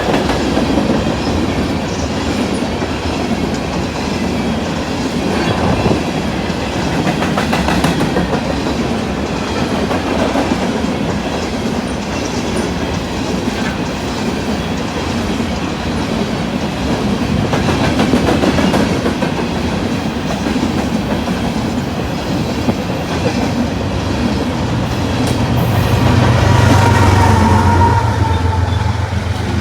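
A BNSF freight train's cars rolling past, wheels clacking over the rail joints in a steady rush, with a deeper rumble swelling near the end.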